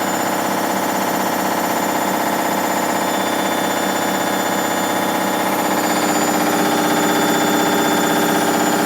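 Hoover Dynamic Next washing machine on its spin cycle, running very noisily with a steady din that gets a little louder about six seconds in. The owner is unsure whether the noise comes from a failing drum spider, worn drum bearings or an overloaded drum.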